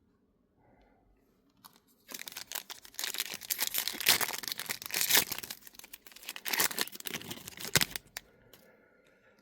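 A trading-card pack wrapper being torn open and crinkled for about six seconds, a dense crackling rustle that starts about two seconds in and stops abruptly near the end.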